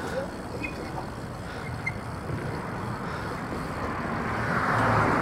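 Outdoor road and traffic noise with a louder whoosh of a vehicle going past, swelling about four seconds in and peaking near the end.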